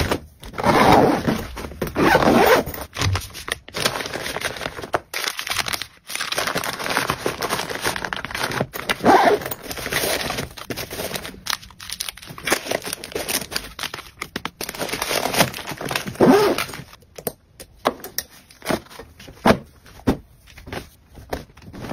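Things being packed into a suitcase by hand: plastic-wrapped packets crinkling, pouches and fabric rustling, and soft knocks as items are set down. It thins out to scattered light taps near the end.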